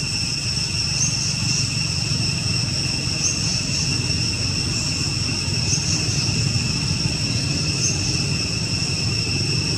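Steady high-pitched drone of insects in the forest, with faint chirps every couple of seconds, over a steady low rumble.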